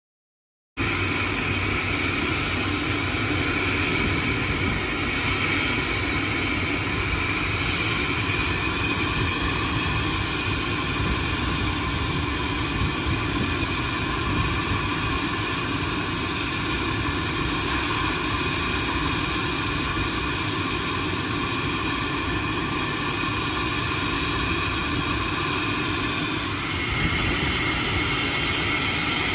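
Private jet's turbofan engines running steadily, a high whine over a rushing noise, starting abruptly a moment in; the whine's tones shift near the end.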